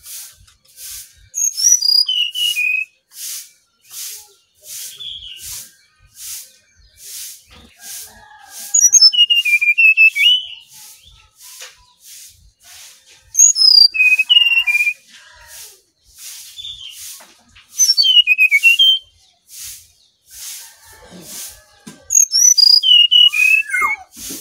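Brown-chested jungle flycatcher singing: about five loud phrases of clear whistled notes, each sliding down in pitch and lasting one to two seconds, roughly every four seconds. Underneath runs a steady hiss that pulses about twice a second.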